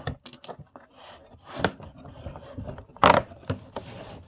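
Small cardboard-and-plastic packaging being handled and opened: irregular scraping and rustling with scattered small clicks, and two louder rasping bursts, one about a second and a half in and one about three seconds in.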